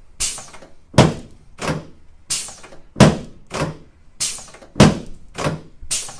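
Rhythmic percussive thumps on the body, about one and a half a second, in repeating groups of three (one hard strike, then two lighter ones) roughly every two seconds, as the hip and thigh muscles are worked over by hand.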